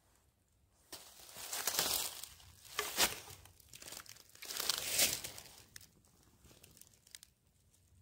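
Crinkly rustling and crunching in a few irregular bursts from someone moving about over dry leaves and snow close to the microphone.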